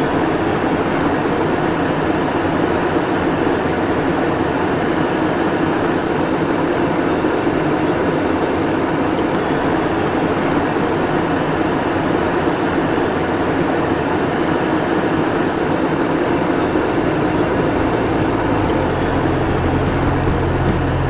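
Steady cockpit noise of a Cessna Citation jet in flight: an even rushing rumble of airflow and its twin turbofan engines.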